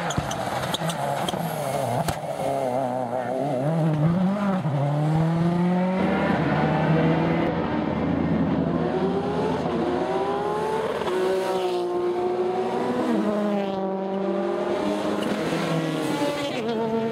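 Rally car engines under hard acceleration, the engine note climbing and dropping back again and again through gear changes. First a Ford Focus WRC accelerating away; after a cut about six seconds in, a second rally car revs hard as it passes.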